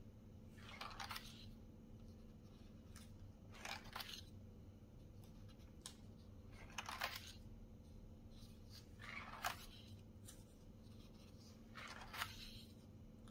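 Pages of a spiral-bound paper workbook being turned by hand, about five brief papery swishes, one every two to three seconds.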